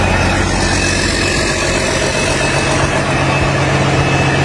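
Rebuilt Caterpillar C13 inline-six diesel engine idling steadily on its first test run after the rebuild.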